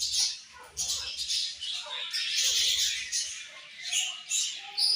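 A colony of budgerigars chirping and chattering, many birds calling at once in quick, overlapping high-pitched calls.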